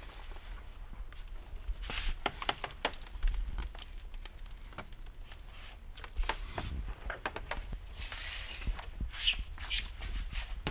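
Scattered clicks, taps and knocks, with brief rustles about 8 to 10 seconds in, from hands working wiring and plastic parts inside a stripped car door.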